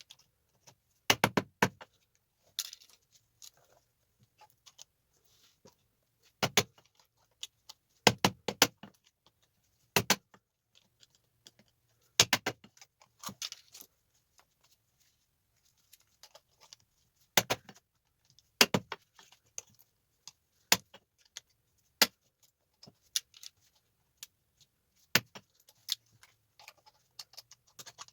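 Sharp metallic clicks and clinks, single or in quick clusters, every second or few: small tactile switches being pried off circuit boards with a metal tool and clattering against metal.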